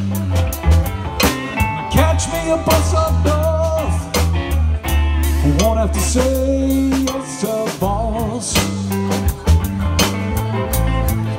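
A live blues band playing, with electric guitars, a drum kit and hand drums over a steady low bass line. A melody line bends and wavers in pitch through the middle.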